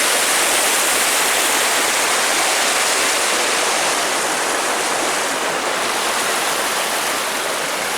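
Water rushing steadily over a creek waterfall: an even, loud hiss that does not change.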